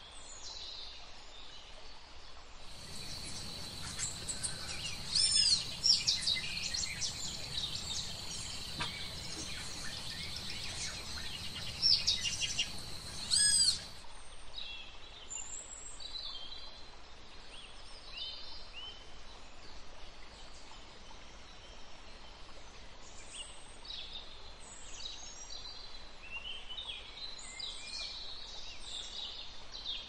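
Wild birds calling in forest: many short, sharp high calls. For the first part they are louder over a steady high whine. After a sudden drop about halfway, softer scattered calls continue.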